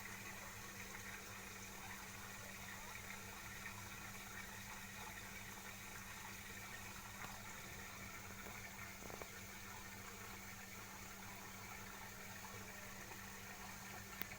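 Faint, steady water-like rushing noise with a low, steady hum underneath.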